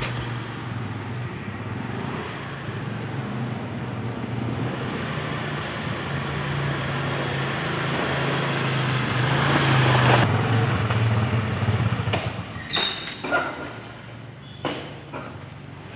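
A motor scooter's small engine running as it rides up, growing louder to about two-thirds of the way through and then easing off. Near the end a brief high squeal and a few short knocks as the scooter stops and is parked.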